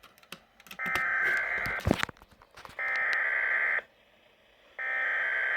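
Three bursts of SAME digital alert-code data from a Weatheradio Canada transmission, each a buzzy, warbling burst about a second long with a second's gap between them. This is the coded signal that switches weather radio receivers into alert mode. A few sharp clicks of static come at the end of the first burst.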